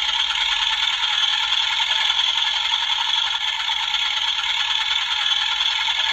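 Battery-operated animated Santa-on-tractor toy running, giving a steady, tinny, high rattle with almost no low end.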